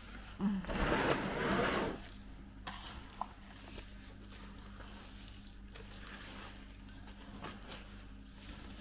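Wet desert terrarium clay squelching as hands knead and squeeze it in a plastic tub. It is loudest for about a second and a half near the start, then goes on as softer squishes with a few small taps.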